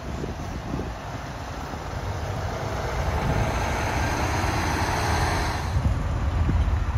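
Heavy cargo truck driving close past, its engine and tyre noise swelling over a few seconds and falling away about six seconds in, over a low rumble of wind on the microphone.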